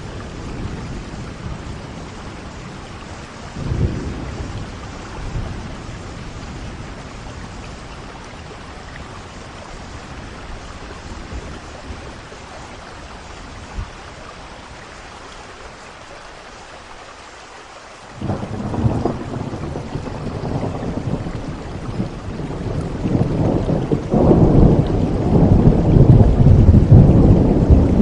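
Steady rain with rolling thunder. A short rumble about four seconds in, then a low thunder rumble breaks in suddenly about two-thirds of the way through and grows louder toward the end.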